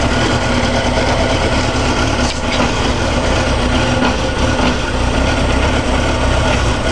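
2004 Suzuki GSX-R600's inline-four engine idling steadily.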